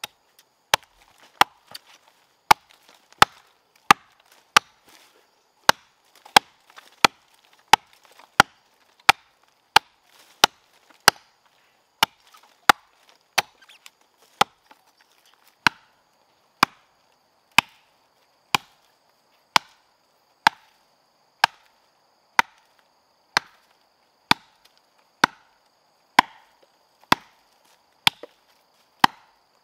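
Blade chopping into wood in a steady rhythm, about one sharp stroke a second, with a faint steady high-pitched hum behind it.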